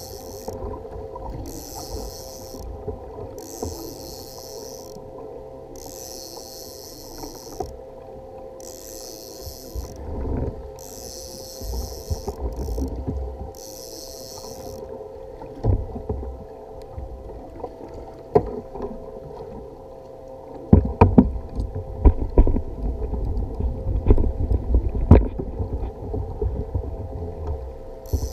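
Large conventional fishing reel being cranked in short bursts, a bit under once a second, while reeling in a hooked fish. The cranking stops about halfway through. Water slaps against a plastic kayak hull throughout, with a run of heavier knocks and thumps in the last third.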